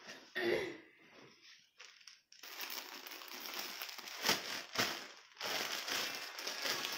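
Rustling and crinkling of folded mekhela sador cloth being handled and opened out. Quieter at first, it grows louder about two and a half seconds in, with a few sharper crackles about four and five seconds in.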